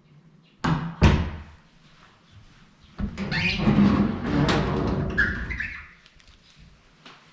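An apartment door or cupboard being worked: two sharp knocks close together about a second in, then a longer rumbling slide lasting about three seconds.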